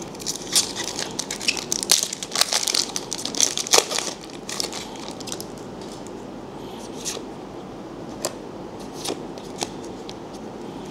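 Foil booster-pack wrapper being crinkled and torn open, a dense run of crackling for the first four seconds or so, then quieter card handling with a few scattered clicks as the cards are pulled out.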